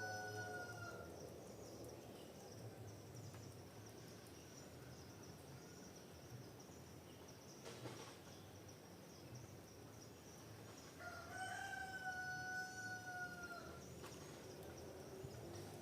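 A rooster crowing twice: the end of one long crow about a second in, then a full crow near the end, held and dropping slightly at its close. A steady high insect drone runs underneath.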